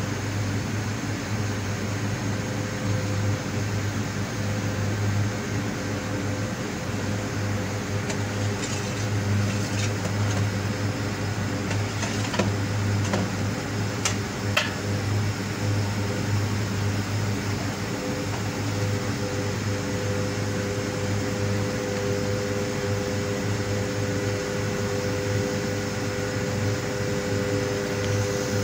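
Steady drone of a suction pump running, drawing greasy sludge out of a septic tank through a large hose. A few short scraping knocks from a long-handled scraper in the tank come around the middle.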